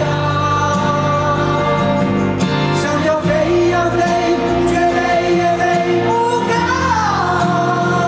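A male singer with a live band, holding long sung notes of a pop-rock chorus, the pitch changing about three seconds in and again near the end.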